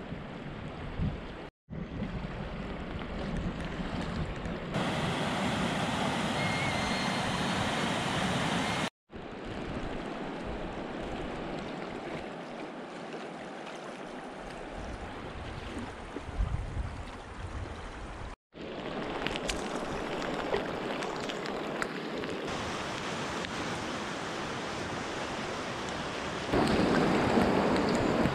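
Moving river water rushing and lapping close to a raft, with wind buffeting the microphone at times. It cuts out abruptly three times between clips, and grows louder near the end where the current runs over a riffle.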